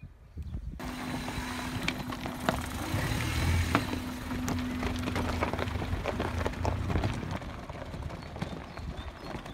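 Lifted Suzuki Jimny's engine running as the 4x4 drives off over loose shore stones, with many sharp clicks of pebbles crunching under its off-road tyres.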